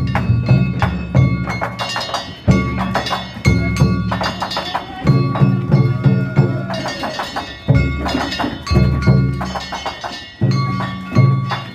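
Danjiri-bayashi festival percussion: a large taiko drum beaten in repeated rhythmic phrases with fast runs of strokes, over the ringing clang of hand-struck brass gongs (kane).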